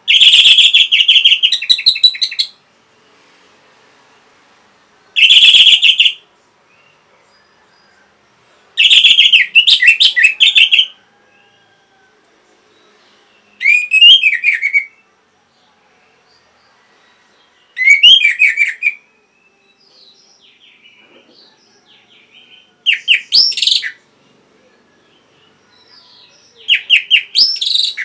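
Orange-headed thrush singing loud bursts of rapid, varied, rising and falling notes. There are seven phrases of one to two and a half seconds, separated by pauses of two to three seconds, with a few soft quiet notes in between.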